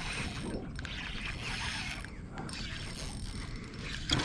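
Fishing reel working under load while a hooked giant trevally is fought: a continuous mechanical rattling and clicking from the reel's gears.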